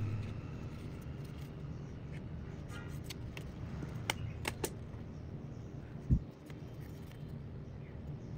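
Light clicks and taps from handling a utility knife and a tube hole punch on a tabletop, with one dull thump about six seconds in, over a steady low hum.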